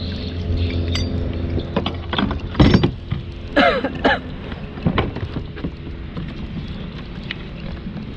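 Scattered knocks and clinks of gear being handled on a fishing kayak, loudest in a cluster a few seconds in, over a steady low hum.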